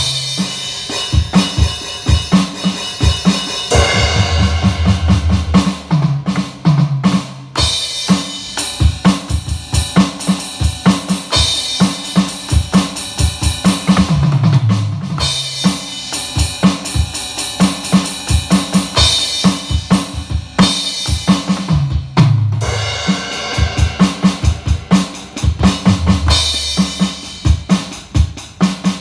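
Music: a busy drum-kit beat of kick, snare and cymbals over a bass line that steps between notes.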